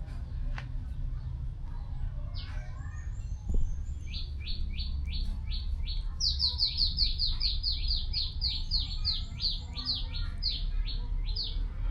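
A bird calling a rapid series of short, sharp chirps, each falling in pitch, about four a second, starting about four seconds in and growing louder, over a steady low rumble. A brief thump comes just before the chirps begin.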